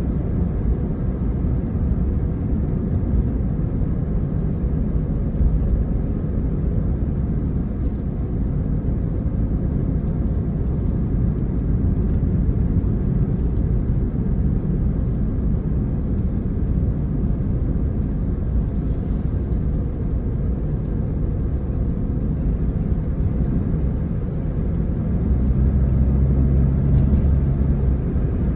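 Mitsubishi i's turbocharged 660 cc three-cylinder engine and dual exhaust, heard from inside the cabin in normal driving, as a steady low drone over road noise. About 25 seconds in the engine note grows louder and steadier as the boost gauge rises, the engine pulling under turbo boost.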